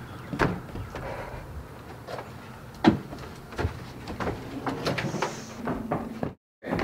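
A person coming in through a front door and walking into a room: scattered knocks and thumps of the door and footsteps, the loudest about three seconds in, then a quick run of lighter taps. The sound cuts out completely for a split second near the end.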